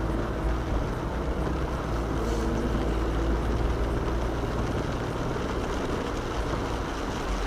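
Steady low engine rumble of a vehicle, heard from on board, with a faint drone of steady tones above it.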